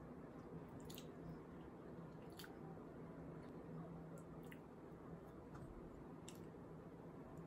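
Quiet eating: a metal fork cutting into a scone and clicking on a ceramic plate, a few small clicks spaced a second or two apart over a faint steady hum.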